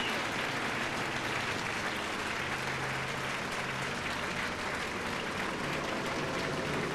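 Theater audience applauding steadily, a dense even clapping that greets the act as it is announced.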